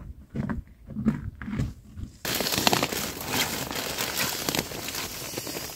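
A few soft thumps, then about two seconds in a dense crinkling rustle of nylon as a camp pillow and an air sleeping pad are pressed and arranged inside a tent.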